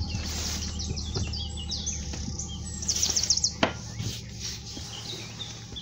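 Small birds chirping and trilling over the low, steady running of a narrowboat's diesel engine, with a single sharp knock about three and a half seconds in.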